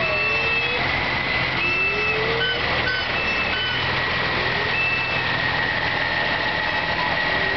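Fire truck engine running at idle, with a steady high tone over it, a few short high whistles and faint, short rising wails.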